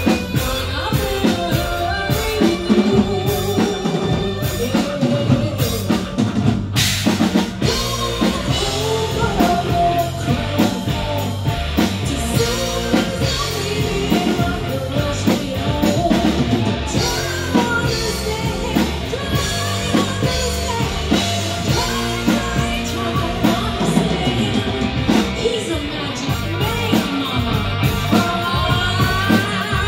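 Rock band playing live: drum kit, electric guitar and bass under a woman's sung lead vocal.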